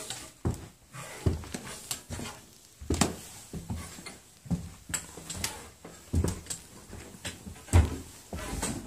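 Footsteps of people climbing wooden stairs: a string of irregular thuds, about one every half second to second.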